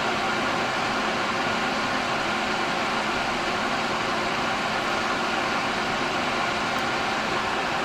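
Steady hiss of an electric blower running without change.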